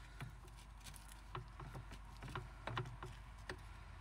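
Plastic spatula cutting down through a crisp, well-browned shortcrust pie on a plate: faint, scattered crackles and taps as the crust breaks and the tool touches the plate.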